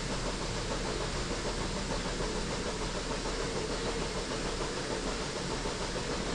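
Steady drone of dairy shed machinery running, with a low hum underneath and no change through the stretch.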